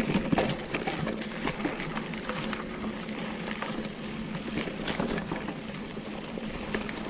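Mountain bike rolling over a dirt and gravel trail: steady tyre noise with many small clicks and rattles from stones and the bike.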